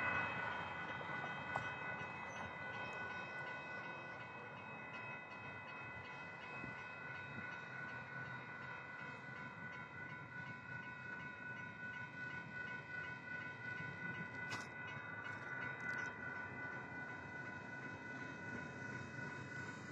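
Railroad crossing warning bell ringing continuously, a rapid, even run of metallic dings, signalling that the crossing is activated for an approaching train.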